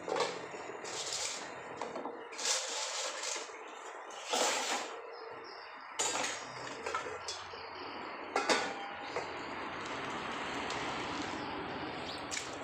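Dishes being washed by hand at a sink: a steady wash of water and scrubbing, broken by several short knocks and clatters of dishware.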